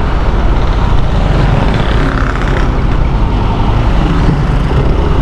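Yamaha NMAX 155 scooter's single-cylinder engine running at a steady road speed, under a constant rush of wind and road noise.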